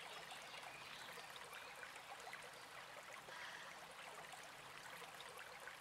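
Near silence with a faint steady hiss.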